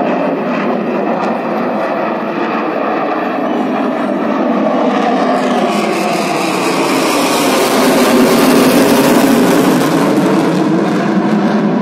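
Fighter jet flying overhead, its engines making a loud, steady roar that grows louder and harsher to a peak about eight to nine seconds in, with a sweeping change in pitch as it passes.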